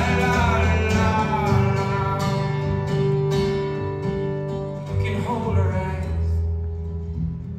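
Live solo performance: a strummed acoustic guitar with a man's singing voice over it, the voice strongest in the first couple of seconds. The playing thins out and quietens near the end.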